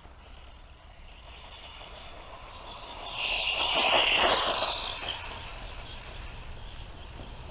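Bonzai Jubatus 1/14-scale 4WD RC buggy with a brushed electric motor, its motor and gears whining as it drives past, growing louder to a peak about four seconds in and then fading away.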